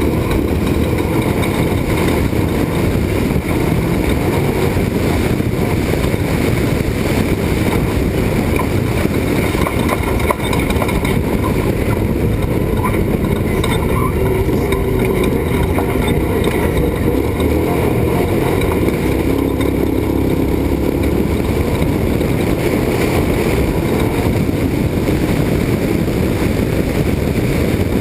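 Off-road race truck's engine running steadily at speed, with a loud, constant low rumble of driving noise.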